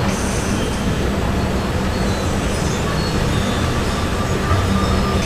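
Sleeping house cat snoring, a steady low rumble.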